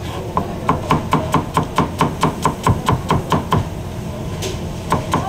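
Chef's knife rapidly chopping onion on a cutting board: rapid, even strokes at about six a second, pausing for about a second near the end before starting again.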